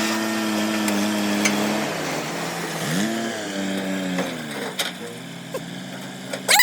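Heavy diesel engine running, its pitch rising about three seconds in and falling again as the throttle changes. A short, loud, sharp sound comes right at the end.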